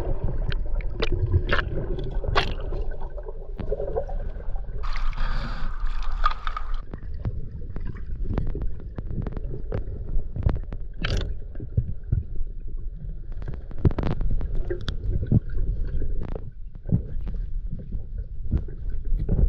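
Underwater sound from a submerged camera while snorkelling: a muffled low rumble of water with many scattered clicks and crackles, and a stretch of rushing, hissing noise about five seconds in.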